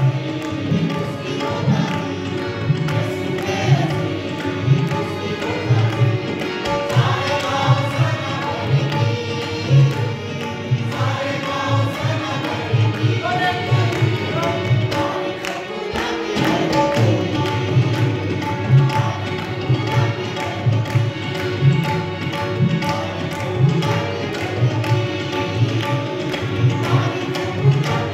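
Live Urdu Christian worship song: a group of voices singing over harmonium and keyboard, with tabla keeping a steady beat and hand clapping. The tabla drops out briefly about halfway, then comes back.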